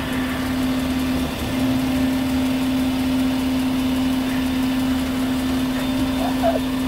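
Recycling truck's engine idling, an even running sound with a constant hum that does not change.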